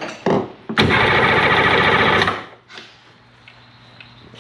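A 1991 Sea-Doo SP's two-cylinder Rotax two-stroke engine cranks over on its electric starter for about a second and a half with a rapid, even rhythm, without firing, then stops.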